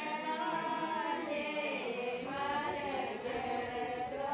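A group of voices singing a devotional song together in unison, unaccompanied, holding long drawn-out notes.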